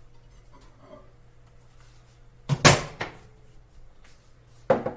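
Kitchen handling noises: a short clatter about two and a half seconds in and a sharp knock near the end, like a mug or dishes being set down or a cupboard closing, over a low steady appliance hum.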